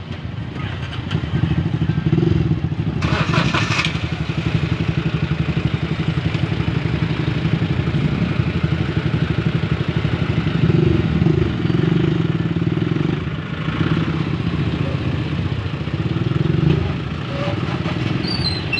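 Several motorcycle and small-vehicle engines running steadily in a queue of traffic, with a short burst of higher, harsher noise about three seconds in.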